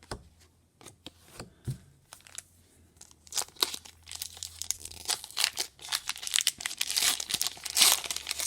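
Trading-card booster pack wrapper being torn open and crinkled: a few light clicks at first, then dense crackling of the wrapper from about three seconds in.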